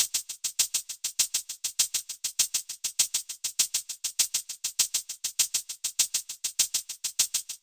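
Rapid, evenly spaced high-pitched percussion ticks, about seven a second, as a bare rhythmic music track.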